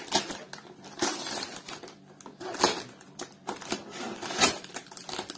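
A cardboard box being opened: packing tape cut and pulled free, with irregular rustling, scraping and sharp clicks of the cardboard being handled.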